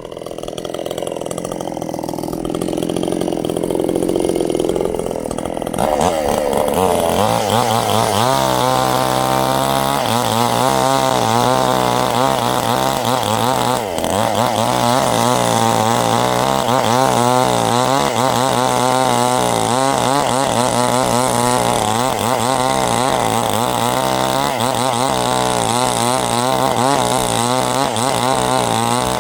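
Stihl chainsaw cutting sengon wood: quieter for the first few seconds, then opening up about six seconds in and running at high revs under load, its pitch wavering as it works through the cut.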